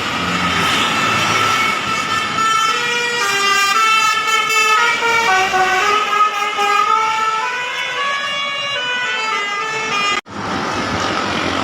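Bus's telolet basuri multi-tone musical horn playing a tune of short stepped notes over traffic noise, the melody dipping in pitch and climbing back up. The sound drops out for an instant near the end.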